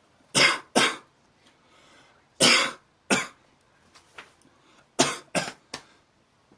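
A person coughing in three bouts: two coughs, then two more about two seconds later, then three quicker coughs near the end.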